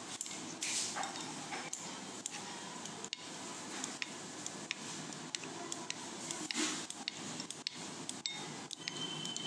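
Red plastic spoon stirring and whisking thinned curd in a glass bowl: a wet, steady churning with many small, irregular clicks of the spoon against the glass.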